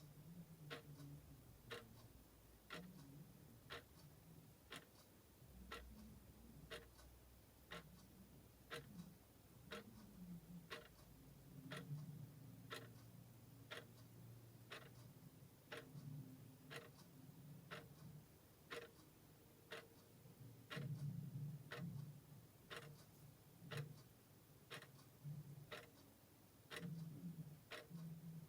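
Mechanical clock ticking at a steady even rate, about two quiet ticks a second.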